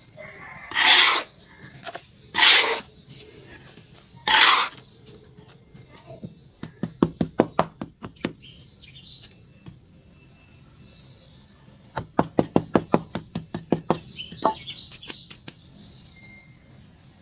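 Pure charcoal being worked by hand: three short rasps in the first few seconds, then two runs of rapid crunchy clicks at about eight a second.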